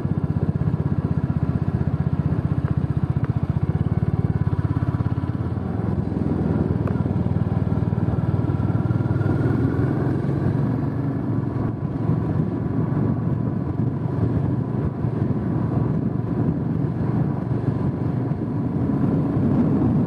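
A vehicle engine running close by, with a fast, even throb for the first five seconds or so and a rougher, uneven running sound after that.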